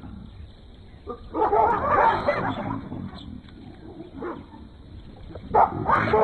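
African wild dogs and baboons clashing: a dense burst of harsh barks and yelps about a second in, then a few short single calls, with two louder ones near the end.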